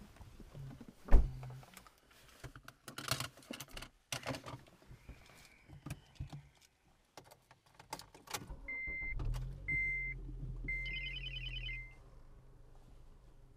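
Getting into a 2011 Honda Civic Si: a loud thump about a second in, then clicks, rustling and keys jangling. About nine seconds in the K20 four-cylinder engine starts and runs while the dashboard chime beeps about once a second, four times, and the engine sound drops quieter near the end.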